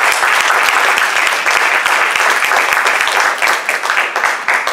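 Small audience applauding, the clapping thinning out near the end.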